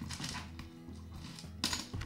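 Background music with a steady pulsing bass. Over it come light metallic clicks and scrapes of small screws being worked out of the laptop's bottom cover, the loudest about three quarters of the way in.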